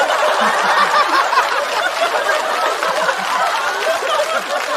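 Studio audience laughing and clapping together after a punchline, many voices' laughter over steady applause, easing off a little toward the end.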